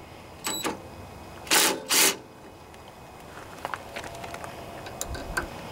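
Hand tools clicking and clinking on a lawn mower engine's carburetor linkage while the choke cable is being disconnected. There is a short metallic ring about half a second in, two louder knocks close together about a second and a half in, then scattered small clicks.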